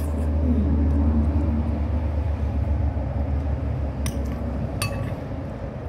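Low, steady rumble of a motor vehicle's engine running close by, fading toward the end. Two light clinks of a spoon on a plate come about four and five seconds in.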